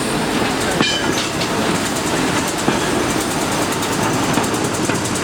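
Train hauled by the A1 Pacific steam locomotive 60163 Tornado running past on the rails, with a brief high squeal about a second in and an even, fast clicking in the second half.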